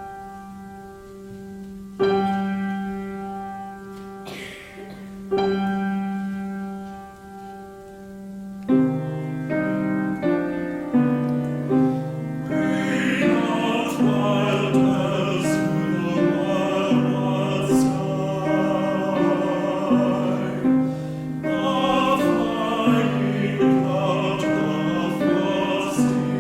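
Music: a piano plays three slow, held chords that ring and fade. About nine seconds in, it moves into a flowing accompaniment, and from about twelve seconds a choir sings over it.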